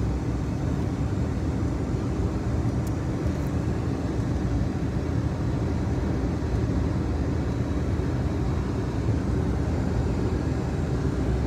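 Steady low rumble of a car driving at road speed, heard from inside the cabin: tyre noise on asphalt mixed with engine hum.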